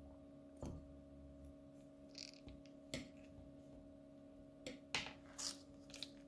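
Scissors snipping the tip off a plastic piping bag, a single sharp click about half a second in, then scattered soft crackles, clicks and squishes as the bag is squeezed and thick slime is piped out, the loudest near the end, over a faint steady hum.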